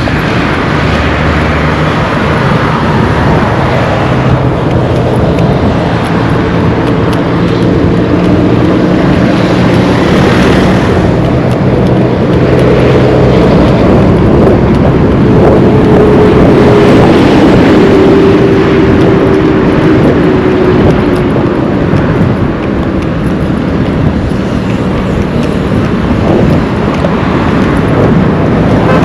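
Road traffic: motor vehicle engines running close by as a steady loud noise. Through the middle one engine note swells and dips slightly in pitch, as a vehicle passes.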